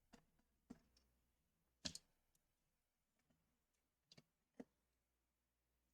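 Faint, scattered clicks and taps of laptop internal parts being handled and pressed into place during reassembly, with a louder double click about two seconds in and another pair near four seconds.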